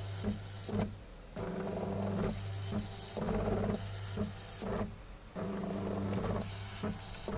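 Stepper motors of a homemade pen plotter, built from an old scanner, stepping the pen carriage back and forth. Each run is a buzzing whine of about a second, split from the next by a brief stop and a short knock as the axis changes direction, over a steady low hum.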